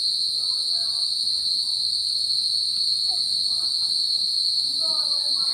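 Steady, high-pitched trilling of insects, unbroken throughout, with faint voices in the background.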